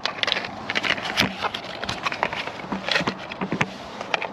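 A new glow plug's packaging being opened and handled: irregular sharp clicks and crackles.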